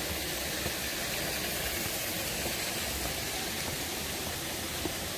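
Steady rushing of water from the gorge's waterfall and river, an even hiss with no change. A few faint footsteps on concrete stairs sound over it.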